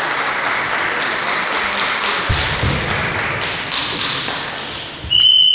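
Bamboo shinai tapping and clacking against each other as two kendo fencers break from a sword-lock, with a low thud of a foot on the hall floor about two seconds in. A short high-pitched tone sounds near the end.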